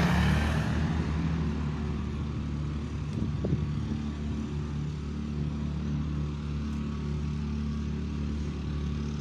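Steady low hum of a motor vehicle engine running, with a louder rush of noise right at the start.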